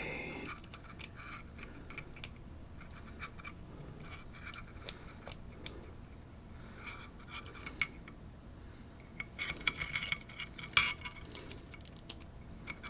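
Small metallic clicks and scrapes of lock-picking tools working in a Fichet pin-tumbler lock, scattered and bunching into busier clusters around the middle and again near the end.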